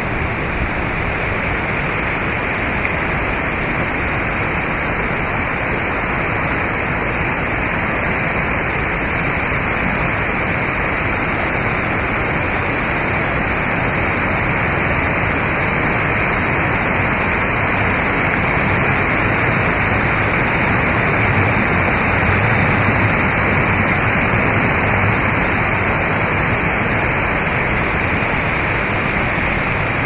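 Rushing river water, a steady loud hiss of flowing water.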